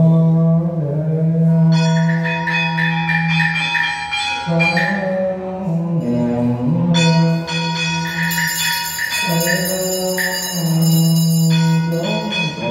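Buddhist monk chanting through a microphone in long held notes that shift slowly in pitch, with small ritual bells struck over and over from about two seconds in, each strike ringing on.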